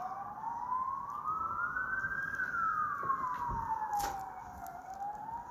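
An emergency-vehicle siren wailing. Its single tone rises slowly for about two seconds, falls for about two and a half seconds, then starts rising again near the end.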